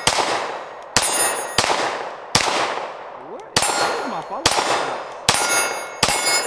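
Smith & Wesson SD9 2.0 9mm pistol firing eight shots at a steady pace, a little under one a second, each dying away with an echo. After the shots comes the clang and ring of a steel target being hit.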